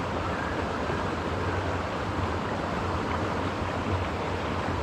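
Steady rush of a small mountain creek's flowing water.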